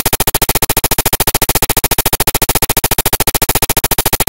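Electronic transition sound effect: a loud synthesized buzzing tone pulsing rapidly and evenly, about fifteen pulses a second.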